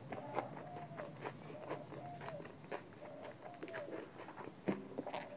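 Close-up wet chewing and lip smacking on chicken curry, with many sharp mouth clicks, the loudest a little before the end.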